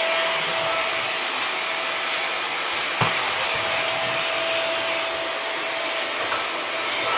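Shark vacuum cleaner running steadily, its motor whirring with a steady whine. A single sharp knock about three seconds in.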